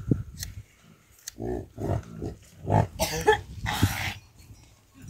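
Yaks grunting: a series of short grunts, with a louder, harsher noisy burst just before four seconds in.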